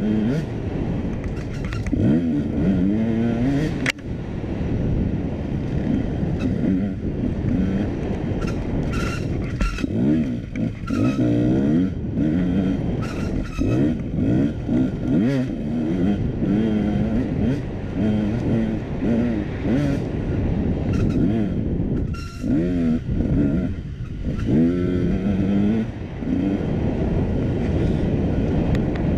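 KTM dirt bike engine on the move, revving up and falling back over and over as the throttle is worked, its pitch climbing and dropping every second or two. Scattered sharp knocks come through over it, a loud one about four seconds in.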